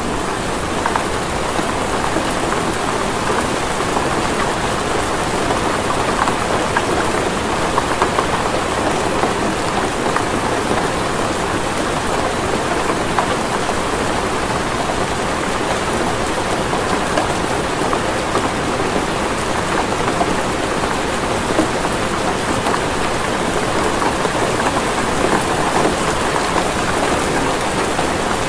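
Steady, even rain falling, a dense patter of drops on a surface.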